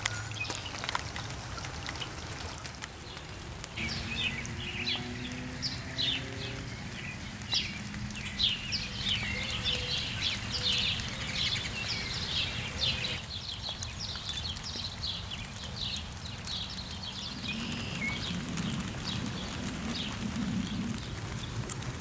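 Steady rainfall, with a run of short, high chirps over it from about four seconds in that stops abruptly around thirteen seconds in.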